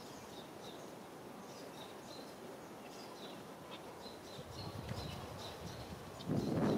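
Small birds chirping over and over in short, high notes above a steady outdoor background hiss, with a brief low rumble near the end.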